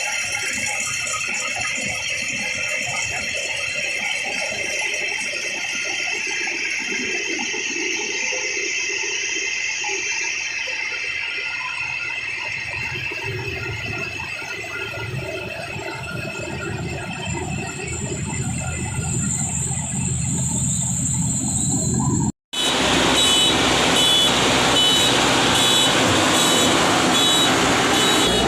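Rice harvesting machine running with a steady mechanical rattle. After an abrupt cut near the end, a louder engine runs with a repeating high electronic beep, like a reversing alarm.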